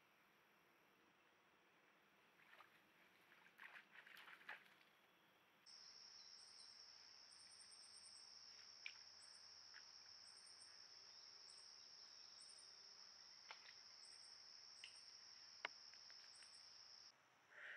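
Faint outdoor insect chorus: a steady high trill starts about six seconds in, with short chirping bursts from a second insect above it, and stops shortly before the end. Before it come a few soft rustles and knocks, and a few faint sharp clicks sound over the trill.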